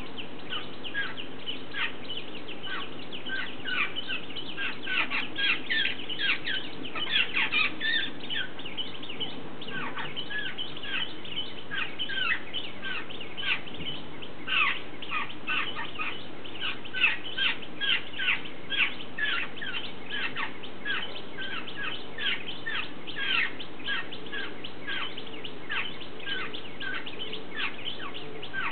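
Jungle babblers calling: a dense stream of short chattering calls, several a second, including a fledgling's insistent begging to be fed.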